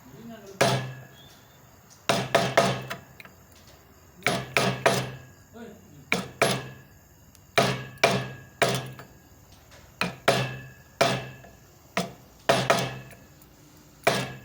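Mallet tapping a carving chisel into wood: sharp knocks in irregular groups of two or three, about every second or two.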